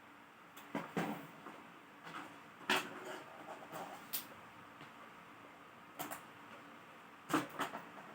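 Scattered sharp clicks and light knocks of a laptop's casing and small tools being handled while it is taken apart, with a cluster of knocks near the end.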